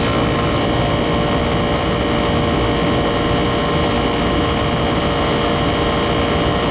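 Small window air conditioner with a rotary compressor running steadily with its cover and filter in place: an even rush of air from the fan with a steady hum and whine of tones on top. It is cooling normally, holding its refrigerant charge.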